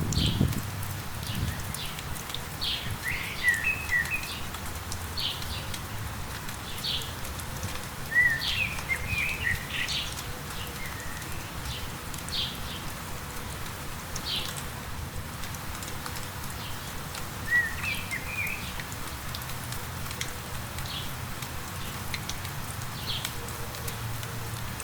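Songbirds calling over steady light rain: a short high call repeated every second or two, with a few quicker twittering phrases, three times.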